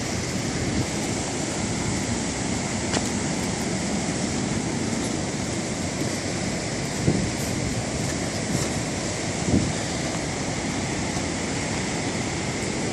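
Steady rushing of surf and wind, with two soft thumps about seven and nine and a half seconds in.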